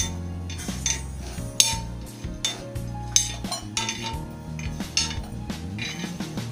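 A metal spoon scraping and clinking across a hot tawa in repeated strokes, about one or two a second, as coconut pieces and whole spices are stirred while they dry-roast for garam masala.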